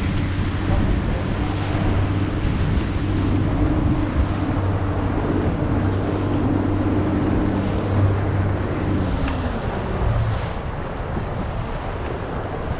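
The boat's engine running steadily as it moves closer, then easing off and dropping away about ten seconds in, with wind buffeting the microphone and water rushing throughout.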